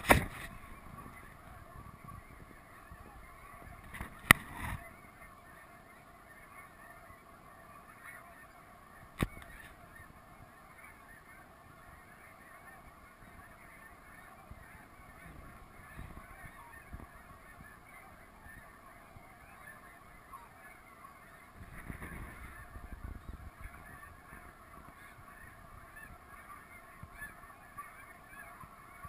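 A flock of snow geese calling, a steady dense chorus of many overlapping voices. A sharp knock comes at the start and again about 4 and 9 seconds in.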